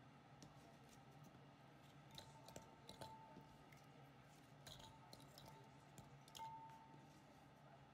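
Faint clicks and taps of cut vegetable chunks dropped by hand into a glass food-processor bowl, a few scattered strikes over several seconds.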